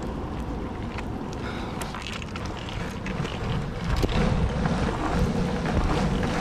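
Longboard wheels rolling over a paved park path: a steady rumble with scattered small ticks from bumps and joints, mixed with wind on the microphone. The rumble grows louder about four seconds in.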